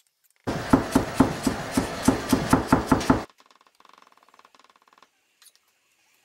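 Kitchen knife blade chopping quickly on a wooden cutting board, mincing vegetables: about four rapid strokes a second, stopping suddenly about three seconds in.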